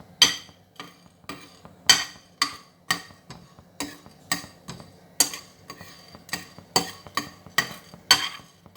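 Cloves and black peppercorns being dry-roasted in a pan and stirred, the utensil scraping and tapping against the pan about twice a second in a steady rhythm.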